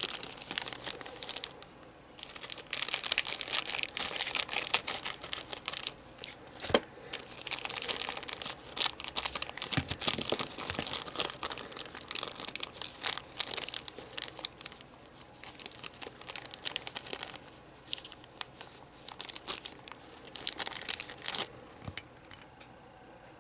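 Plastic crinkling and crackling with irregular small clicks as model-kit parts are handled, in two long stretches with a short lull between.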